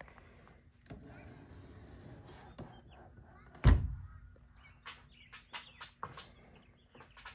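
A deck hatch lid swung shut onto its frame with one loud thump about three and a half seconds in, after a couple of seconds of handling noise. A run of short, sharp clicks follows.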